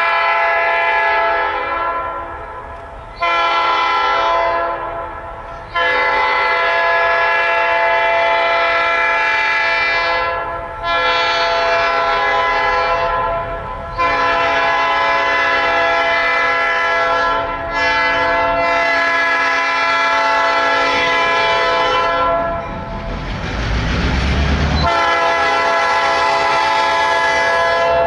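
EMD diesel locomotive's air horn sounding a series of long blasts, with one brief blast among them, as the train approaches. Near the end the horn pauses while the locomotive's low engine and wheel rumble swells as it draws close, then the horn sounds again.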